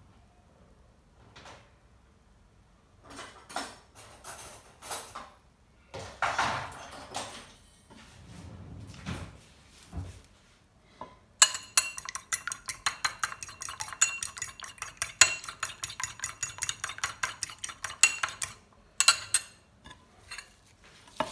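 A fork beating a raw egg in a small ceramic dish: a quick, even run of metal-on-dish clinks, about seven a second, lasting some seven seconds in the second half. It is preceded by a few scattered knocks and scrapes of utensils.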